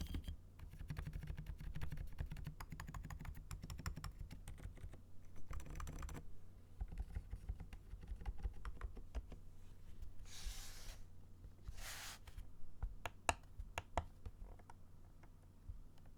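Typing sound test on a custom mechanical keyboard with Outemu Silent Peach V3 silent switches and PBT MDA keycaps: quiet, damped keystrokes, fast and dense for about six seconds, then slower, scattered presses. Two brief hissing noises come past the middle.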